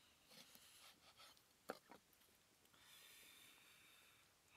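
Near silence, broken by a few faint clicks and taps of a knife cutting a lime on a wooden board, with two sharper knocks just under two seconds in, then a faint steady hiss.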